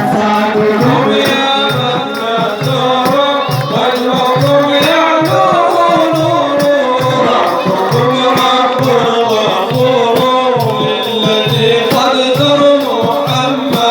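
Sufi devotional song (inshad): a melodic line with a voice over a steady low drum beat, about one and a half strokes a second.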